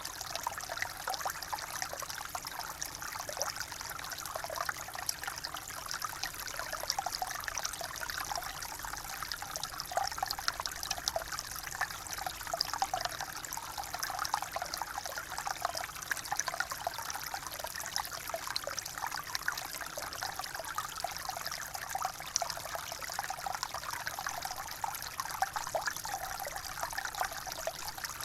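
Water trickling steadily, a continuous babble of many small splashes and bubbling flicks with no change in pace.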